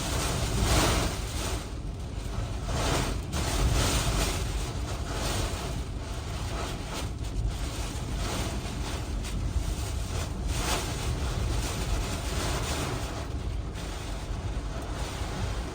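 Hurricane eyewall wind blowing hard in repeated gusts, each surge a rushing hiss over a constant low rumble of wind buffeting the microphone.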